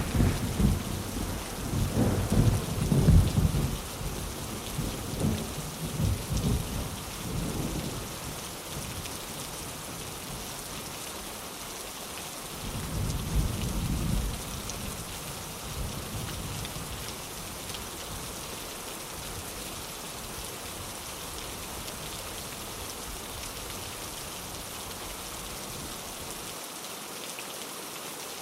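Steady rain with rolling thunder: a long low rumble through the first several seconds that dies away by about eight seconds in, then a shorter rumble around thirteen seconds in, with only the rain hiss after that.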